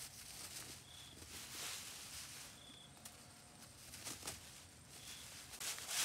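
Rustling and brushing noises in bursts, with a short high chirp repeating every second or two.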